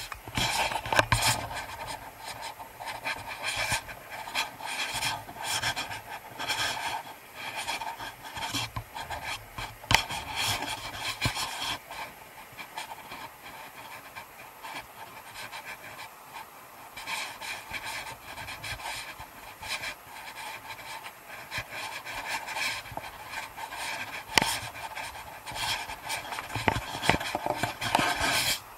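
Footsteps crunching and scraping over snow-covered rocks on a downhill walk, mixed with close rubbing and handling noise against the microphone. The scrapes and knocks come irregularly, easing off for a few seconds in the middle before picking up again.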